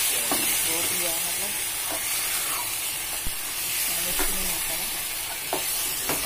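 Metal ladle stirring spinach and paneer masala in a frying pan while the food sizzles, with a few sharp clinks of the ladle against the pan.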